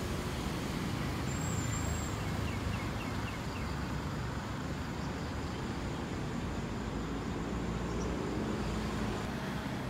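Road traffic: cars and vans passing on the road, a steady low rumble, with a brief run of faint high chirps about two seconds in.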